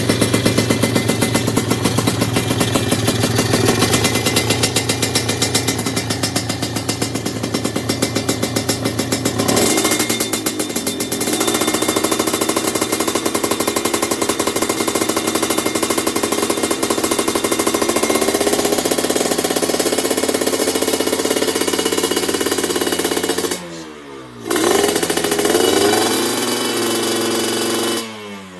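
Kawasaki Ninja 150 RR's two-stroke single, fitted with a 35 mm carburettor, running with a rapid chattering pulse. About ten seconds in the note shifts and settles into a steadier tone. Twice near the end the revs fall away sharply and then pick up again.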